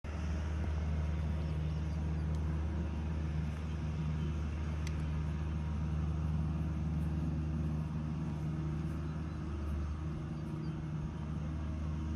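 Skid-steer loader's engine running at a steady speed: a constant low drone with no change in pitch.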